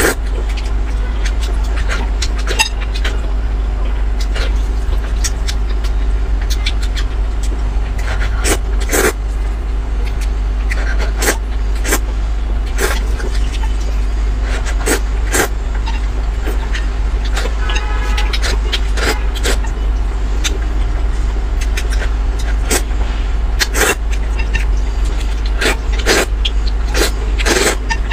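Close-miked eating: a person slurping and chewing noodles, with many short wet clicks and smacks, over a steady low rumble.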